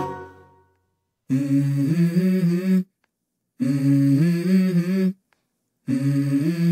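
A jingle fades out at the very start. Then a voice hums a short melody in three phrases of about a second and a half each, with brief pauses between them, opening a pop song.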